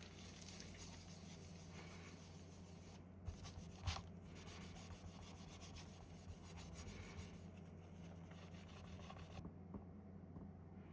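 Faint rubbing and light handling noises, with a small knock about four seconds in.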